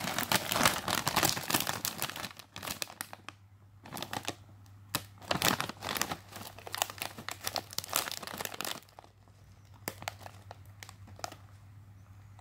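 Plastic Doritos chip bag crinkling in the hands as it is turned and squeezed, in bursts of rustling through the first nine seconds or so, then only a few scattered crackles. A faint low hum runs underneath.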